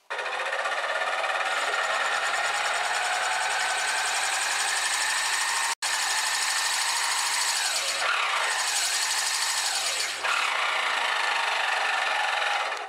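Bench drill press running with an adjustable circle cutter boring into a block of wood: a loud, steady cutting noise, with a short break about six seconds in.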